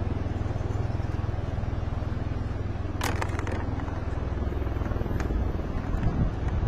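Helicopter rotors beating steadily in a low, pulsing drone, with a few sharp clicks about three seconds in and again about five seconds in.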